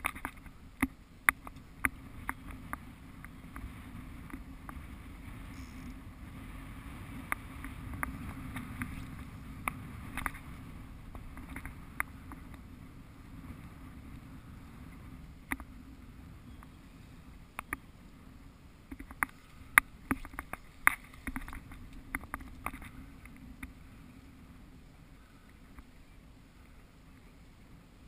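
Choppy water sloshing and a low wind rumble on the microphone, with many scattered sharp clicks and taps.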